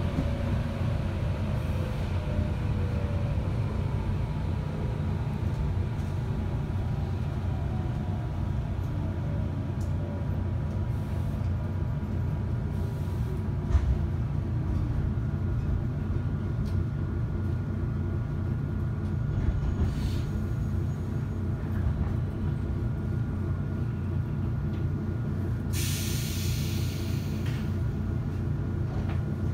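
Interior running noise of a 415 series electric multiple unit slowing to a stop: a steady low rumble, with a whine that falls in pitch as the train decelerates and a single knock partway through. Near the end comes a burst of compressed-air hiss lasting about a second and a half as the train stands at the platform.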